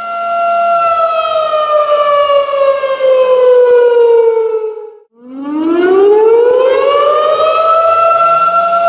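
Tornado warning siren wailing. A steady high tone slowly falls in pitch, cuts out for a moment about five seconds in, then winds back up to its full steady pitch.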